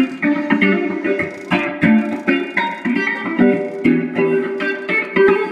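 Guitar music: single plucked notes played in a quick, uneven run, several a second.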